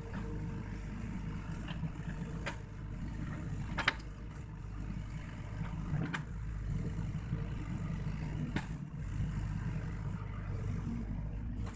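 Sany SY55C mini excavator's diesel engine running steadily as the machine works, with a few sharp knocks scattered through, the loudest about four seconds in.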